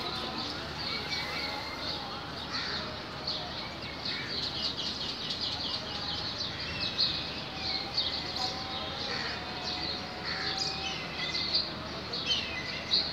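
Many birds chirping at once: a constant busy twitter of quick high calls with a few longer whistled notes.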